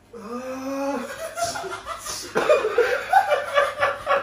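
Several men laughing together: a long drawn-out voice at the start, then louder, choppy bursts of laughter from about two and a half seconds in.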